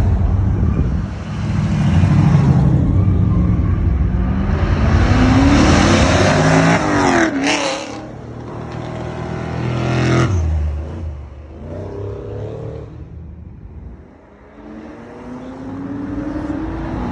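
Muscle cars accelerating hard past on a street, one after another: engine pitch climbs through the gears, a car blasts by about seven and a half seconds in (a white Chevrolet Camaro), then a Dodge Challenger's engine rises as it comes on near the end.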